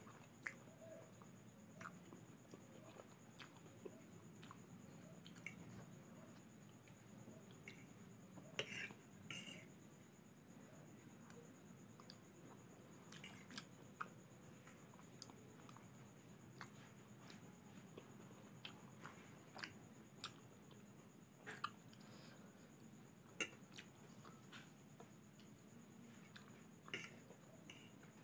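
Faint eating sounds: chewing and slurping instant noodles, with a fork clicking and scraping against the plate at irregular intervals. A handful of the clicks stand out louder.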